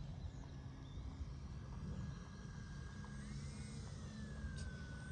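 Faint whine of a small electric RC plane's motor and propeller, rising briefly about three seconds in and then falling back as the throttle is eased while the plane comes in low to land.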